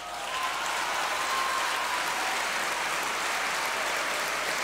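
A large crowd applauding. The clapping swells up within the first half-second and then holds steady.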